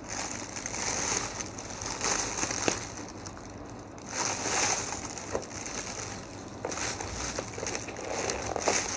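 Paper stuffing and plastic packaging rustling and crinkling as a new sneaker is handled and the paper is pulled out of it, in irregular bursts with a short lull about three seconds in.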